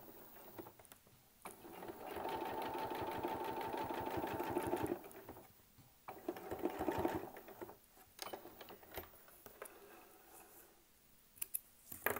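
Electric sewing machine doing free-motion quilting stitches through a quilt sandwich, running in bursts: a run of about three seconds starting near two seconds in, then a short run of about a second, then it stops. A few sharp clicks come near the end.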